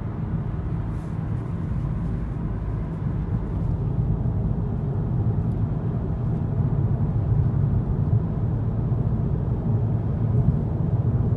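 Steady low rumble of tyre and engine noise inside a car cruising at motorway speed.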